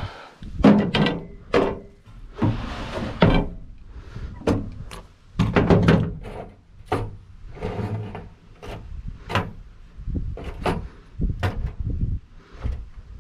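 Irregular knocks, thumps and clatter, with a stretch of scraping and rustling, as tools and roofing gear are picked up and handled.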